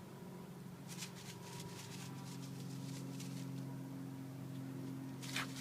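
Steady low machine hum that slowly grows louder, with brief rustling noises about a second in and again near the end.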